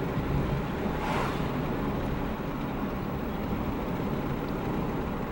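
Steady rumble of a car's engine and tyres heard from inside the cabin while driving, with a brief rush of hiss about a second in.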